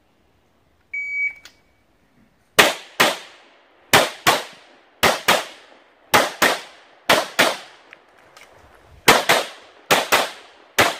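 A shot timer beeps once, about a second in, giving the start signal. Then a handgun fires in quick pairs: two shots about a third of a second apart, a pair roughly every second, about seven pairs in all with a brief pause near the end.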